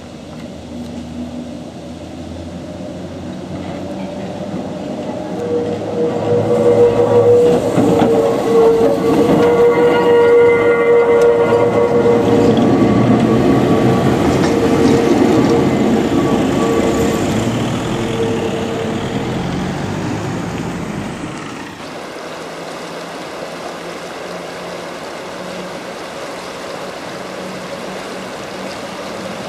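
An electric tram running past close by on street track, building to a loud pass with a steady whine and rumble, then fading. About two-thirds of the way through, the sound cuts to the steady rush of a shallow rocky river.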